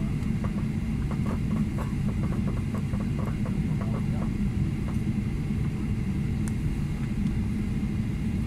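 Steady low rumble inside a jet airliner's cabin as it taxis with its engines at low power, the level even and not building toward takeoff thrust.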